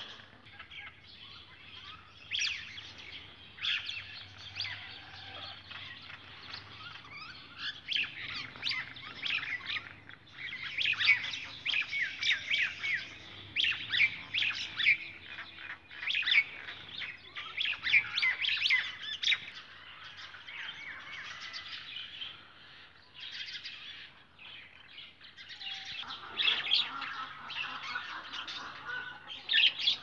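Many small birds chirping and twittering in quick, overlapping calls, busiest in the middle stretch, with harsher, lower calls joining near the end.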